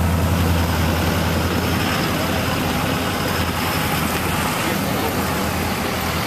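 Pickup truck engines idling steadily, a deep low hum that is strongest in the first second or so.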